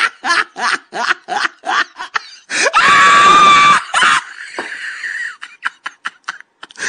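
A person laughing in quick bursts, about four a second, then a loud, high-pitched scream held for about a second near the middle.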